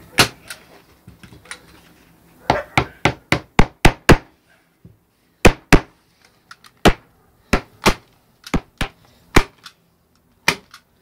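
Sharp knocks of hand-tool work on a canvas stretcher frame. There is one knock just after the start, a quick run of about seven from two to four seconds in, then single knocks spaced roughly a second apart through the rest.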